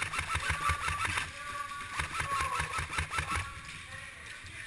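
Two bursts of full-auto airsoft electric gun fire, each about a second long with a short pause between: a rapid, even clatter with the gearbox cycling.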